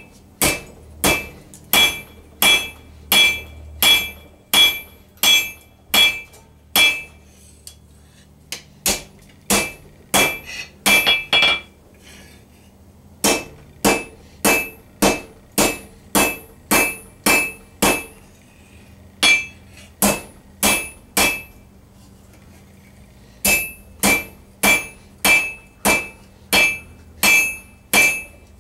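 Hand hammer striking red-hot 1 cm round bar stock on an anvil, about two blows a second, each with a high ring, broken by a few short pauses. The smith is drawing out and thinning the bar.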